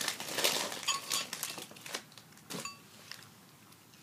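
Rustling and clatter of tableware and packaging being handled, with two short ringing clinks, about a second in and again about two and a half seconds in; the handling stops a little past halfway.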